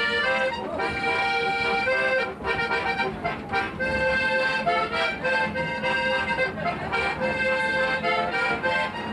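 Button accordion playing a tune: held chords and melody notes that change every half second or so.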